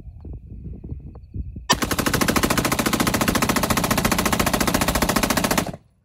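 An AR-style rifle with a Rare Breed FRT forced-reset trigger fires a fast, near-full-auto string of shots into brick for about four seconds. The string starts a little under two seconds in, after a few quiet handling knocks, and cuts off sharply.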